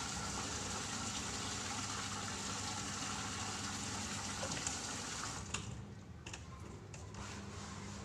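Water running steadily from an outdoor wall tap, a continuous splashing hiss. It cuts off about two-thirds of the way through as the tap is closed, followed by a few small clicks and drips.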